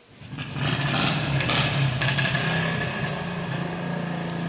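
An engine running steadily, cutting in suddenly right at the start.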